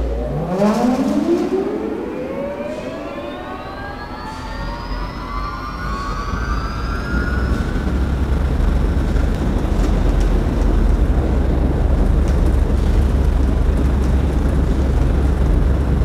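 Large industrial process fan starting up. A whine rises steadily in pitch over about eight seconds as the motor and fan come up to speed, then levels off into a steady run with a low, growing rush of air.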